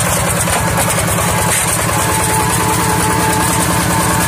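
Two-wheel hand tractor's single-cylinder diesel engine running steadily with a rapid, even chugging while it pulls a plough through wet paddy mud.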